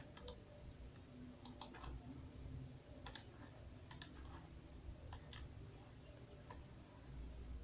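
Faint computer mouse clicks, irregular and about one a second, as vertices are selected and dragged.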